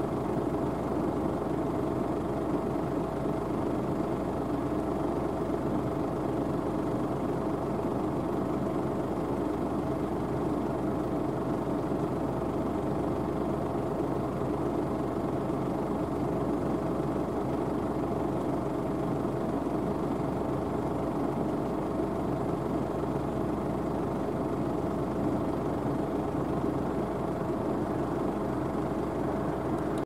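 Belarus MTZ-82 tractor's four-cylinder diesel engine running steadily under load while pulling a three-furrow mounted plough through the soil.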